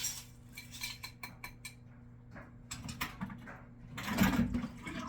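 Clinking and rattling of kitchenware as a strainer and pot of washed navy beans are handled, with scattered short clicks and a louder rattle about four seconds in.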